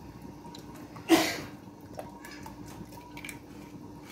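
A slotted metal spatula stirring water with a little oil in a stainless steel pot. One short loud noise comes about a second in, over a steady low hum.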